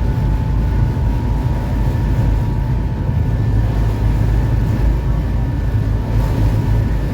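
Electric passenger ferry under way, heard from inside its cabin: a steady low rumble with a faint constant whine over it.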